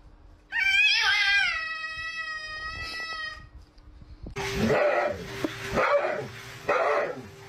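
A cat's long, drawn-out yowl lasting about three seconds, rising and then slowly falling in pitch. From about four seconds in, a husky gives a string of short, rough cries, one every half second to a second.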